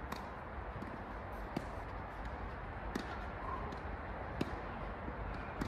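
Tennis rally: the ball struck back and forth by rackets, five sharp hits evenly spaced about a second and a half apart, over steady outdoor background noise.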